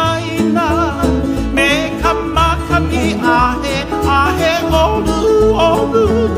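Country/bluegrass-style music with plucked strings such as banjo and guitar, a steady bass beat and a singing voice.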